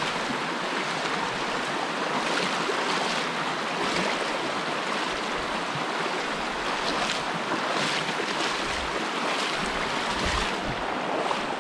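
Water of a hill stream rushing steadily, an even noise that holds without a break.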